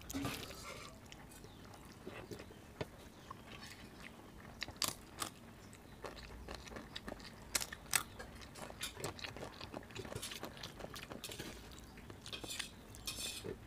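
Close-up eating sounds: fingers squishing rice and kadhi together on a steel plate, then chewing, with sharp crisp crunches now and then as papad is broken and eaten.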